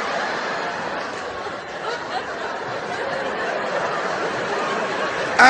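Audience laughing, a steady wash of laughter without a break.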